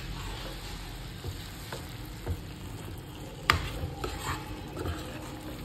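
A spoon stirring carrot halwa in a pan, with a few light clicks of the spoon against the pan, the sharpest about three and a half seconds in.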